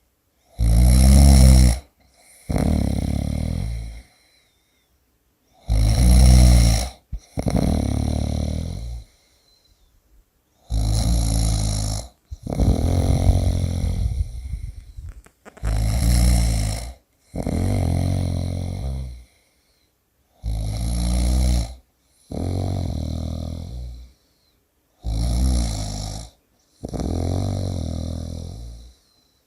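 A person snoring in a steady rhythm: about six breaths, each a short, loud snore followed by a quieter, longer one, with a brief pause between breaths.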